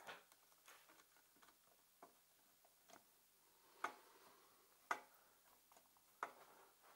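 A few sharp metallic clicks at irregular spacing as a hand screwdriver works the ignition coil's mounting screws on a 50cc two-stroke pocket bike engine. The loudest come a bit under four, about five and just over six seconds in.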